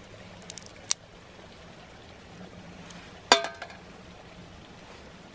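Roasted chestnut shells cracking as they are peeled by hand: a small sharp crack about a second in and a louder, ringing crack a little past three seconds. A creek flows steadily in the background.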